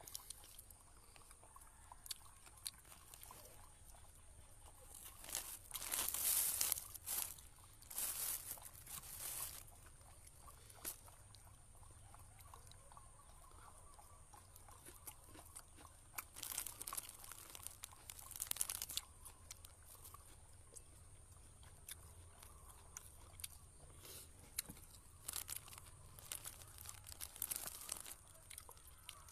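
Close-up eating: chewing with crunching, and thin plastic bags crinkling as food is picked out of them, coming in several short bursts.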